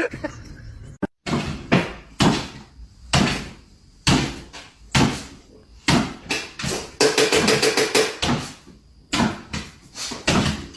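A series of sharp knocks or bangs, a dozen or so at irregular intervals of roughly a second.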